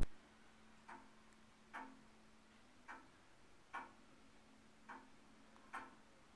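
Tall-case (grandfather) clock ticking about once a second, six ticks in all. The beats come alternately closer and farther apart and alternately softer and louder, an uneven tick-tock. A sharp click at the very start.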